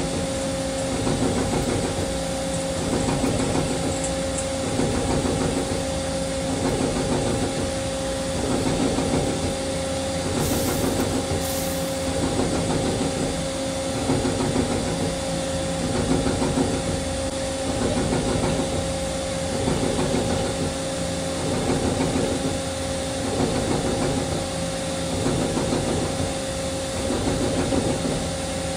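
Two-axis CNC lathe running with coolant hissing and a steady motor whine, the cutting noise swelling and easing about every two seconds as the tool works the part in a grooving cycle.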